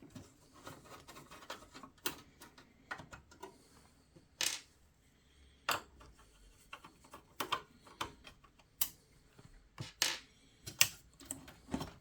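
Irregular clicks, taps and knocks from hands and parts moving inside a PC case while its power supply is being worked loose, with a few sharper knocks in the second half.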